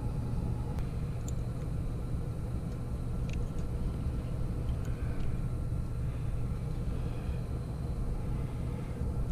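Steady low hum and rumble of running HVAC equipment in a mechanical room, with a few faint small clicks.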